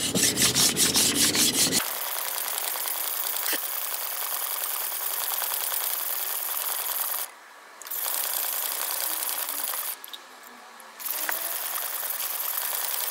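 Carbon-steel gyuto blade ground back and forth on a wet, coarse GC#220 green silicon carbide whetstone, thinning the blade at the first sharpening angle. It starts with about two seconds of loud, quick strokes, roughly four or five a second, then turns to a steady gritty rasping that stops briefly twice.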